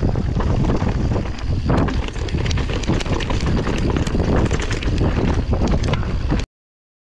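Wind buffeting the action camera's microphone over the clatter of a 2018 Orbea Rallon full-suspension mountain bike descending a rough trail, with many small knocks and rattles. It cuts off suddenly near the end.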